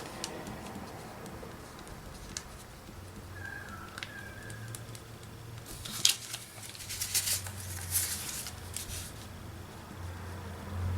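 Faint clicks and scratchy ticks of a Posca paint marker and paper being worked at a craft table, coming in a cluster about six to nine seconds in, over a low hum.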